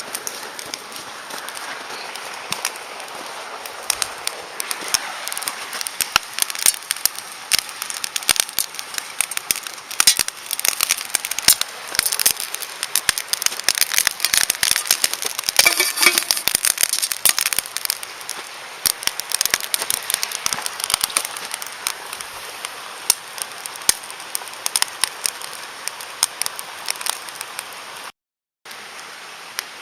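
Driftwood campfire crackling and popping: sharp pops come thick and fast over a steady hiss, densest around the middle. The sound drops out for about half a second near the end.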